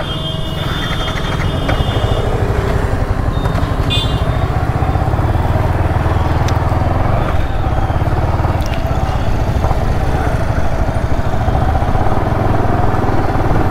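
Yamaha R15 V3's 155 cc single-cylinder engine running as the motorcycle pulls out and rides slowly through street traffic: a steady low rumble that grows a little louder over the first couple of seconds. Short high-pitched beeps sound about half a second in and again about four seconds in.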